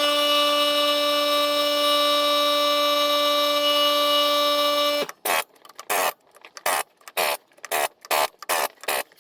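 Power impact wrench running a lug nut in one long steady whine, which cuts off about five seconds in and is followed by about eight short trigger bursts as the lug nuts are snugged down on a truck wheel.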